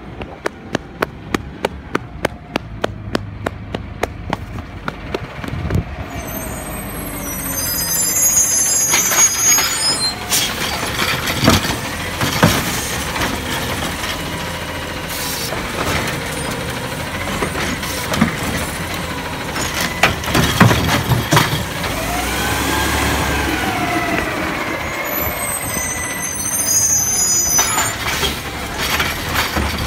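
Automated side-loader garbage truck running while its hydraulic arm lifts a green organics cart, tips it into the hopper with several loud bangs, and lowers it back to the curb, with a rising and falling hydraulic whine near the end. A quick, even run of clicks comes first, over the first few seconds.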